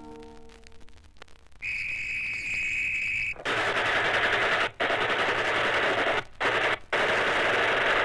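Old-time radio sound effects: a police whistle blown for about two seconds, then long bursts of machine-gun fire broken by short gaps. The last held notes of a folk song die away just before the whistle.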